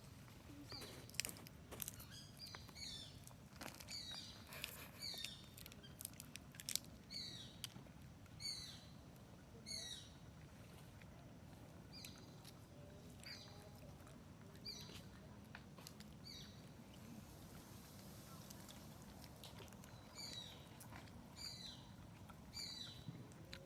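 A bird calling over and over: short high chirps that slide downward, about one a second, with a break of a few seconds late on. A few sharp clicks sound in the first seconds.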